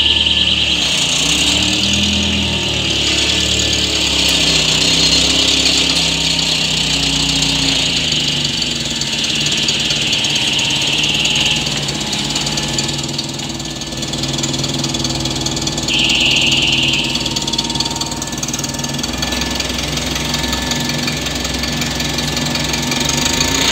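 Nissan forklift's engine running and revving up and down. A high steady whine comes and goes three times.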